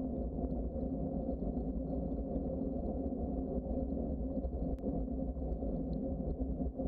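Steady low rumble of a bicycle rolling along a trail: tyre and wind noise. A single faint click comes about five seconds in.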